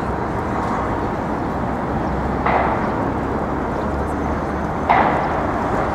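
Steady city street noise of traffic, with two short, sudden bursts of noise about two and a half seconds apart, the second the loudest.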